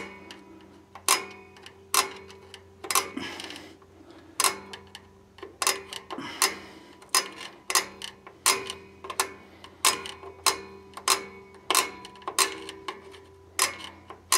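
Star-wheel adjuster of a 1967 Ford Mustang rear drum brake clicking as it is pushed round with a tool, a sharp click about every two-thirds of a second, one for each tooth that passes the adjuster lever. The shoes are being spread out because they still sit too loose for the brake drum.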